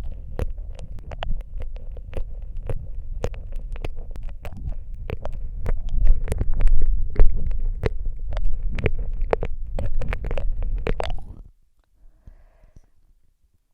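Close-up ASMR mouth sounds into a Rode microphone: rapid wet clicks and smacks over a low rumble, stopping suddenly about eleven seconds in, followed by a faint breath.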